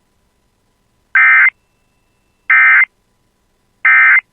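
Three short bursts of Emergency Alert System SAME digital data tones, each a fraction of a second long and about a second and a half apart: the end-of-message code that closes the alert.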